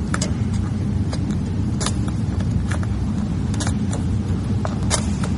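Steady low rumble under scattered light clicks and ticks, about a dozen irregular ones, from hands working vinyl wrap and a small plastic tool along a truck door edge.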